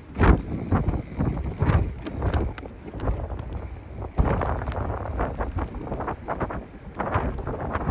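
Strong wind buffeting the microphone in uneven gusts, with irregular knocks and flutters.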